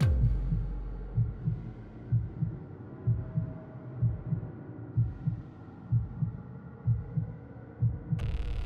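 Slow heartbeat sound effect, a low double thump about once a second, over a low hum. Near the end a steady hiss comes in.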